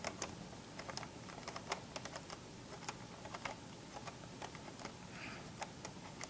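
Faint, irregular small clicks and ticks of a Phillips screwdriver turning a small silver screw into a CPU bracket on a motherboard.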